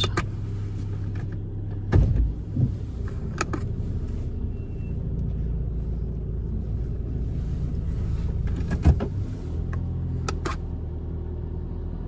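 Car engine running steadily, heard from inside the cabin as a low hum, with a few short knocks and clicks scattered through, the loudest about 2 and 9 seconds in.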